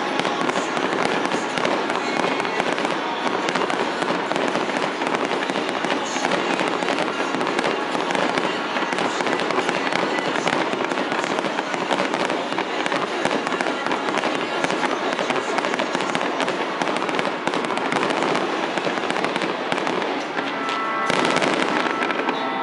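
Aerial fireworks shells bursting in a dense, continuous barrage: many sharp bangs in quick succession with no let-up.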